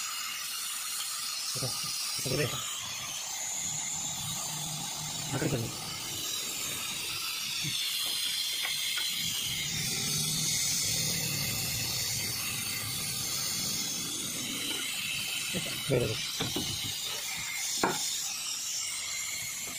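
New brake pads and their metal retaining clips being handled and seated in a Maruti Alto's front disc brake caliper bracket: scattered metal clicks and knocks, the sharpest near the end, over a steady high hiss.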